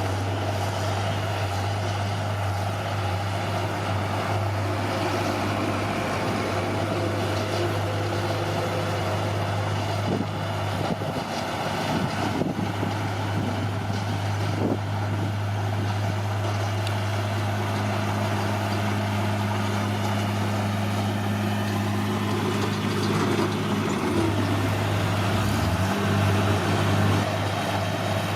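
Heavy diesel engine of an earthmoving machine running steadily under a constant low drone. A second, higher steady tone joins past halfway and slides off in pitch near the end.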